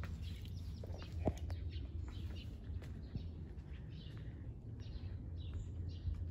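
Small birds chirping outdoors, short high calls repeating through the second half, over a steady low rumble. A couple of faint footsteps on concrete come about a second in.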